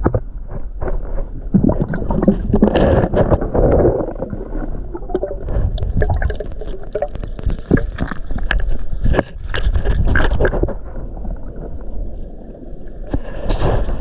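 Muffled underwater water noise picked up by a submerged camera in a river pool: water churning and gurgling around the camera, with many small knocks and clicks as it moves.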